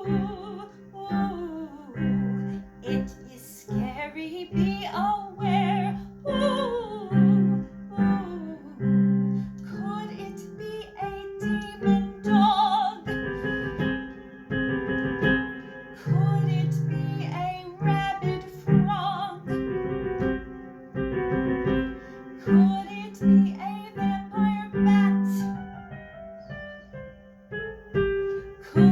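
Children's song with piano and guitar accompaniment and a female voice sliding up and down in pitch.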